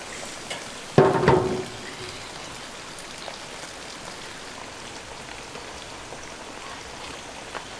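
A big metal lid set down on a large iron wok about a second in: one loud clang with a short ringing tone, over a steady hiss.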